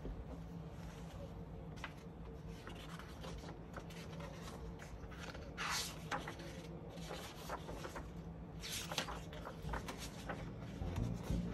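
Pages of a hardcover cookbook being handled and turned by hand: soft paper rubbing and sliding under the fingers, with two louder swishes as pages turn, about six seconds in and again near nine seconds.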